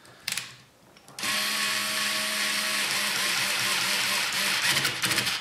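Cordless electric screwdriver running steadily for about four seconds as it drives in a screw, starting about a second in and stopping just before the end.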